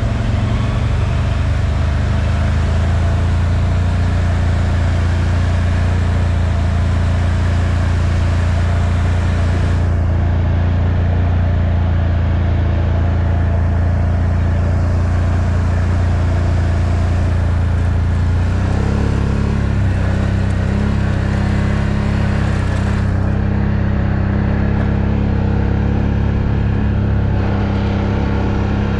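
Off-road ATV engine running close to the microphone at a steady, moderate speed. Its note drops slightly and settles about two-thirds of the way through.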